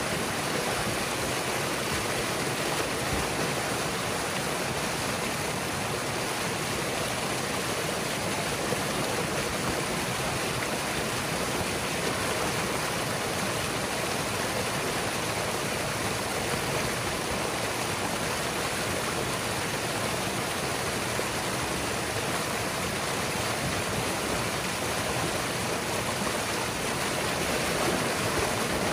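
Water rushing steadily through a breach in a beaver dam, pouring and churning down a small channel as the flooded forest drains.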